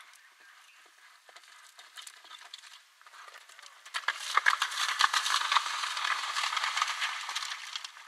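A horse cantering through a water jump, its hooves splashing loudly in a dense run of sharp splashes from about four seconds in until just before the end; before that, only faint hoofbeats.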